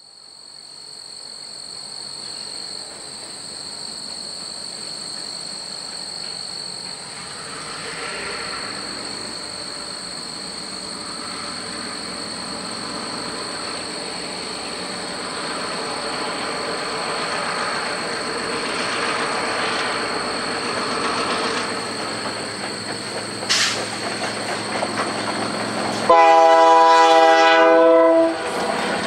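Two EMD diesel locomotives, a GP7 and an FP9A, running light toward the listener, their engine and wheel noise growing steadily louder. About 26 s in, the lead unit's air horn sounds one long blast of about two seconds, the loudest sound here.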